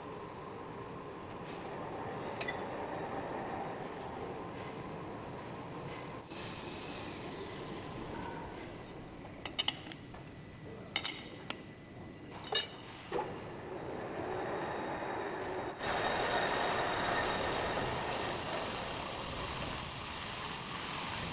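Metal lathe running with a steady mechanical hum, and several sharp metallic clinks from metal parts or tools being handled near the middle. The running gets louder about three quarters of the way through.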